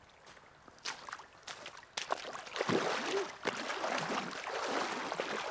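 Legs wading through a shin-deep river, water splashing and sloshing with each stride, starting about two seconds in.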